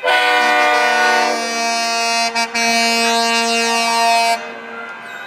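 Heavy tow truck's air horn sounding a long, loud blast of several notes at once, broken briefly about halfway through and cutting off after about four seconds.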